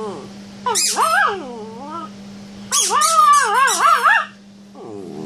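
Bichon cross dog "talking": a run of wavering, pitch-bending whine-like vocalizations, the longest and loudest about three seconds in, then a lower falling one near the end. It is the argumentative vocalizing of a dog demanding a toy.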